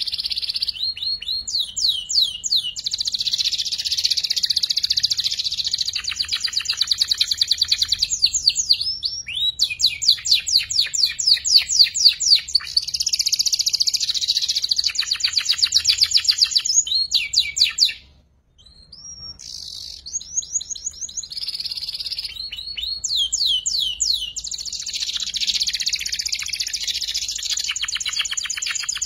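Young domestic canary singing in long runs of rapid trills and quick chirping sweeps, still learning its rolling 'ngeriwik' trill. The song breaks off abruptly for a moment about two-thirds of the way through, then resumes.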